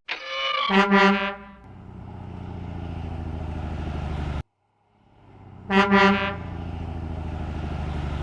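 Garbage truck sound effect: a horn honks with a short double blast, then the engine runs with a steady pulsing rumble that cuts off abruptly. The same horn-then-engine sequence plays again about a second later.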